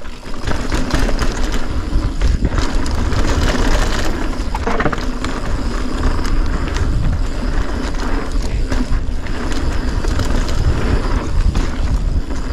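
Polygon Siskiu full-suspension mountain bike riding fast down a dirt trail: tyres crunching over dirt and gravel, with the bike clattering over bumps and a steady low rumble.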